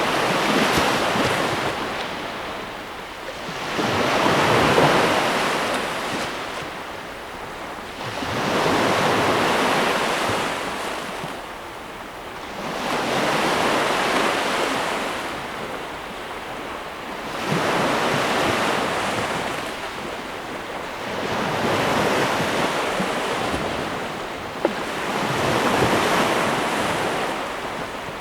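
Ocean waves breaking and washing on a shore, the surf rising and falling in a steady rhythm about every four seconds.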